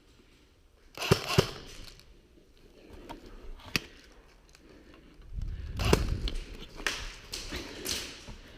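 A few sharp snaps and knocks, two close together about a second in, one near four seconds and one near six, over stretches of rustling and shuffling movement.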